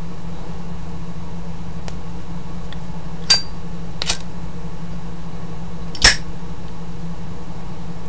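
Brushed chrome Zippo lighter handled in the hand: the lid flicks open with a ringing metallic clink about three seconds in, a smaller click follows, and the lid snaps shut with a louder click about six seconds in. A steady low hum runs underneath.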